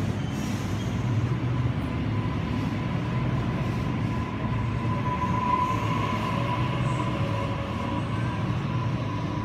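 Sydney Trains Waratah (A set) double-deck electric train pulling out along the platform. A steady low rumble of the carriages runs under a whine that swells to its loudest about halfway through and then fades a little.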